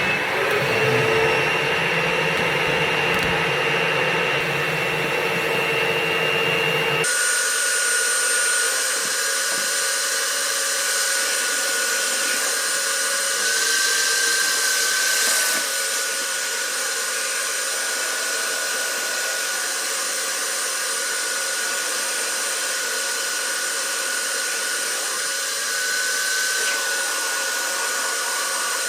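Dryer vent cleaning equipment running: a steady motor whine over a loud rushing noise. About seven seconds in the sound changes abruptly to a thinner, higher whine, which rises briefly twice.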